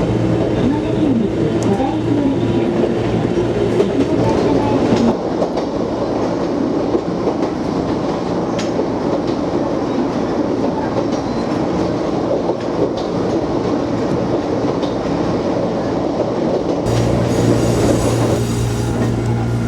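Electric train running along the track, a steady rumble with wheel noise on the rails; a low hum comes up near the end.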